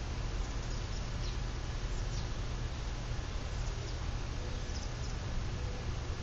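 Quorum Estate 30-inch ceiling fan running at speed: a steady low motor hum under the even rush of air from the spinning blades.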